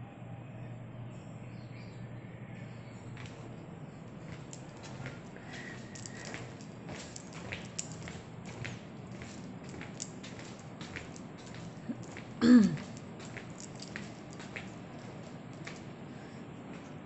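Handling noise from a handheld phone being carried: scattered small clicks and rubs over a steady low hum. About twelve seconds in, one short loud sound drops quickly in pitch.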